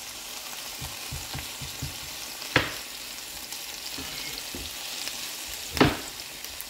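Sliced onion, scallion and garlic sizzling in oil in a nonstick frying pan as a spatula stirs them, with two sharp knocks of the spatula against the pan, about two and a half seconds in and near the end.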